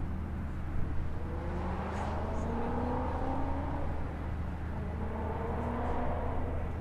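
Car engine accelerating, its note rising in pitch twice over a steady low drone.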